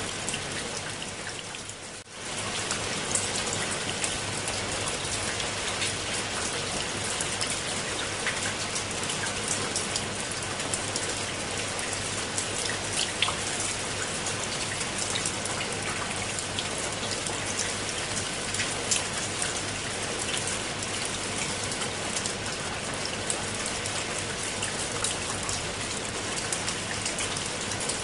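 Steady rain falling on leaves and wet stone steps, with many close drops ticking. The sound dips away briefly about two seconds in and comes straight back.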